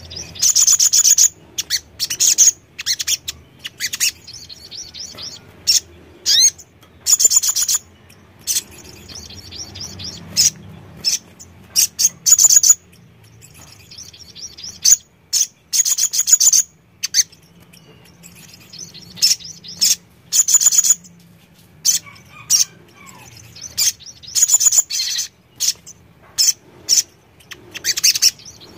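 Sunbird (kolibri sogon) singing in repeated short bursts of rapid, high-pitched twittering chirps, each burst under a second long, with brief pauses between.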